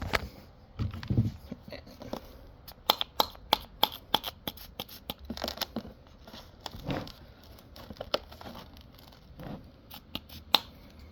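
Irregular clicks and crackles of broken fiberglass pieces being handled and pressed back into place on a damaged RC boat hull.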